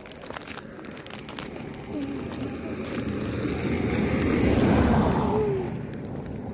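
A vehicle passing close by: a rushing noise that swells for about four seconds, is loudest about five seconds in, then fades.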